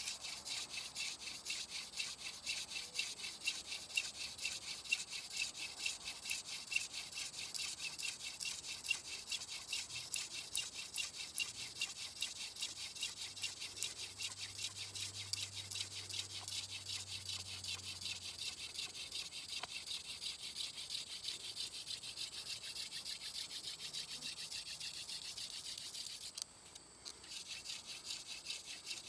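Hand-drill spindle spun back and forth between the palms in the notch of a wooden hearth board: a rapid, even rhythm of dry wood-on-wood rubbing as the spindle grinds out wood dust toward an ember. It stops briefly near the end, then goes on.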